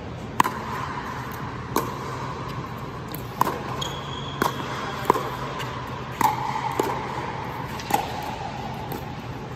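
Pickleball rally: a serve and then a string of sharp pops from paddles striking the plastic ball and the ball bouncing on the hard court, about eight in all, irregularly spaced a second or so apart. Each pop rings briefly under the dome, over a steady low hum.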